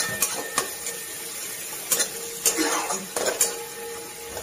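Spatula stirring and scraping a thick frying masala in an aluminium kadai, with about half a dozen irregular clinks and scrapes against the pan over a light sizzle.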